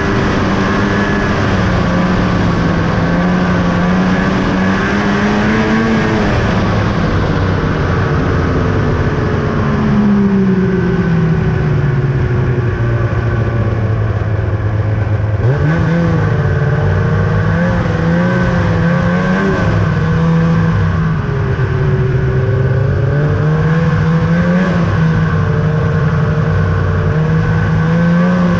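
2000 Ski-Doo Summit 800 snowmobile's two-stroke twin engine running on the trail. The engine pitch falls off over several seconds as the throttle eases, stays low for a few seconds, then jumps sharply back up about halfway through. After that it holds with small rises and dips as the throttle is worked.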